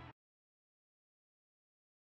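Dead silence on the soundtrack, after the last trace of the music cuts off right at the start.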